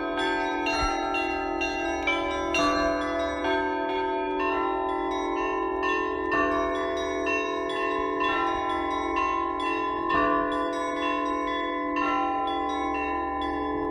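Russian Orthodox church bells rung together in a peal (trezvon): a large bell struck about every two seconds under quicker strikes of smaller, higher bells, their tones ringing on and overlapping.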